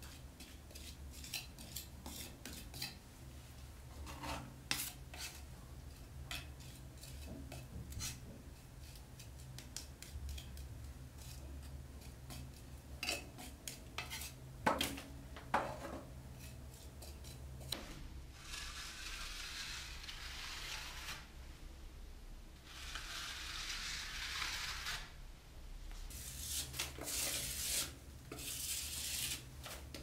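Steel plastering trowel scraping and clicking as gypsum plaster (Knauf Rotband) is scooped off a float and spread on a wall, with metal-on-metal clinks of trowel against float. From a little past halfway the strokes become longer, steady scrapes across the wall.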